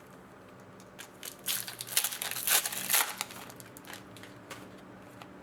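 Foil wrapper of a hockey card pack being crinkled and crushed while it is opened, in a cluster of sharp crackles from about a second and a half to three seconds in.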